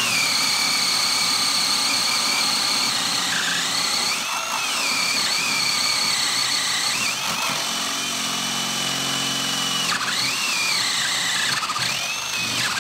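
HART brushless half-inch drill driver running on speed two, boring a 1 1/8-inch spade bit through a wooden block. The motor's whine dips in pitch several times as the bit bites, then recovers. It stops suddenly near the end as the bit breaks through.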